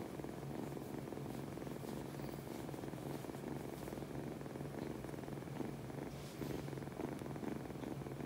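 A baby kitten purring steadily while it dozes, with a continuous low, pulsing rumble.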